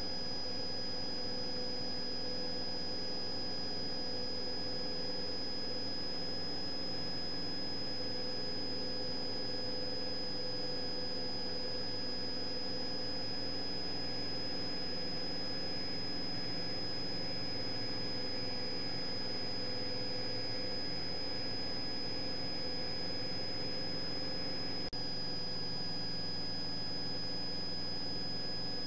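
Cessna 172's engine and propeller droning steadily at full power through takeoff and the climb-out, with a steady high-pitched whine over it.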